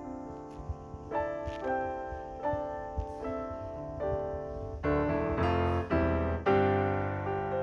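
Background piano music: a gentle melody of struck notes, turning fuller and louder, with bass notes, about five seconds in.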